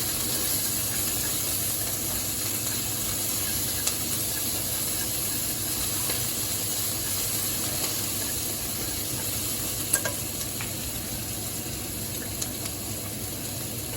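Chopped onion sizzling in hot oil in a kawali as it is stirred, a steady frying hiss. A few sharp clicks against the pan break through it, the loudest about ten seconds in.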